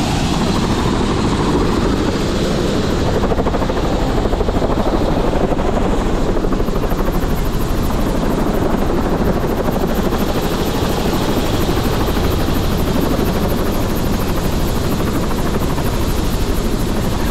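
Helicopter turbine and main rotor running, a loud steady whine and rush with an even pulsing rotor beat.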